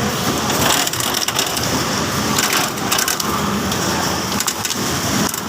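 Coconut shelling machine running, with irregular sharp cracking and splintering as the hard coconut shell is broken away from the kernel.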